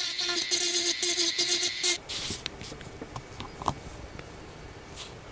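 Pen-style handheld rotary tool with a small burr bit, its motor whining while it grinds a PLA plastic figure, the grinding scratching in short strokes. It cuts off suddenly about two seconds in, leaving faint taps and rustles of the figure being handled.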